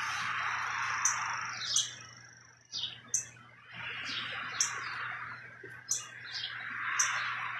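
Small birds chirping with short, quick, high calls, over a louder hissing wash that swells and fades about three times.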